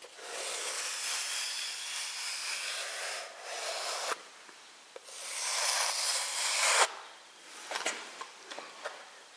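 Metal spatula scraping along joint tape bedded in jointing plaster on plasterboard, pressing the tape down to squeeze out excess plaster and air on the first coat. A long stroke of about three seconds, a short one, a second stroke of about two seconds, then a few light scrapes near the end.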